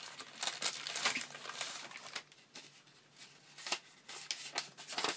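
Plastic packet rustling and crinkling in fits and starts as a leather strop is worked out of it, with a quieter lull near the middle.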